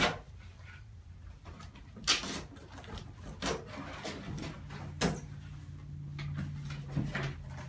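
Cardboard shipping box being opened by hand: its packing tape is pulled and its flaps handled, giving a few short, sharp rips and crinkles about one to two seconds apart.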